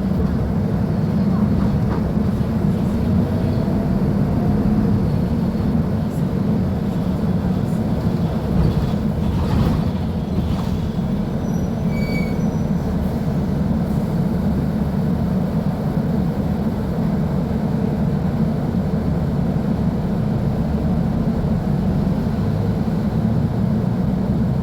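Mercedes-Benz OF-1724L bus's Bluetec 5 diesel engine running steadily, a low, even drone.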